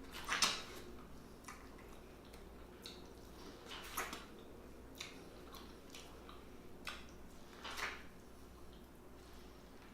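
A person eating close to the microphone: wet chewing and lip-smacking sounds, with a few short smacks, the loudest just after the start and others about four and eight seconds in, and small clicks between.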